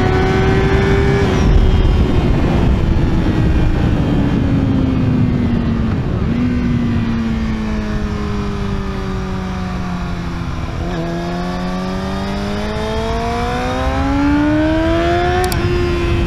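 Yamaha YZF-R6 inline-four motorcycle engine heard onboard: the engine note falls slowly as the bike rolls off, then rises as it accelerates, stepping down near the end at a gear change. Wind rushes over the microphone throughout.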